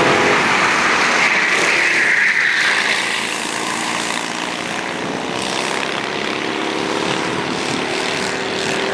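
Racing kart engines running at speed around the circuit, a steady buzzing drone from several karts. A louder, higher buzz in the first few seconds fades out as a kart moves away, leaving the more distant engines.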